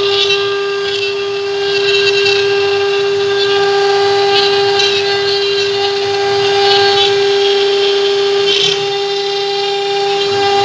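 CNC router spindles running with a steady high-pitched whine as the bits carve a relief into pine wood. A higher cutting hiss swells and fades every second or two as the bits work through the wood.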